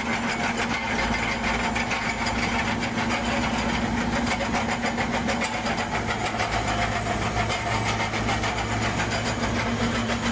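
Wirtgen slipform concrete paver running close up: a steady engine hum with a fast, even rattle from the machine.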